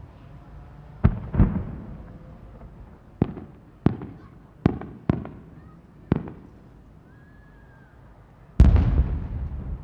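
Aerial firework shells bursting: a series of sharp booms, each trailing off in a low rumble. Seven come over the first six seconds, and a louder, longer boom follows near the end.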